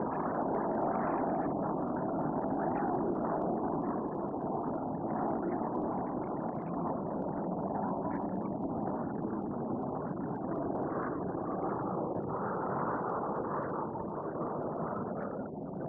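Red Arrows BAE Hawk T1 jets, a steady roar from their turbofan engines.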